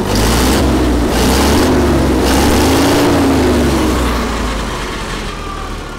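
Allis-Chalmers FP-40 forklift's gasoline engine, running on a freshly overhauled carburetor, revved up with a bit of throttle, held there, then falling back toward idle in the last couple of seconds.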